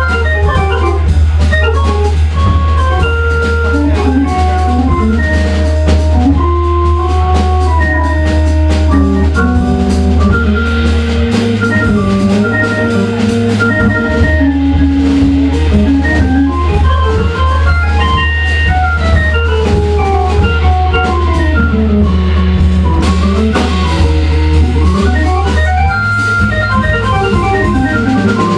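Live jazz with organ and drum kit: the organ plays a flowing melodic line over long held bass notes, with cymbals and drums keeping time behind it.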